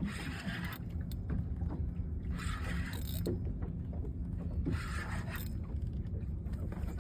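Spinning reel being cranked in short spells while fighting a big fish on a bent rod, heard as a scraping whir that comes and goes about every two and a half seconds over a low steady rumble.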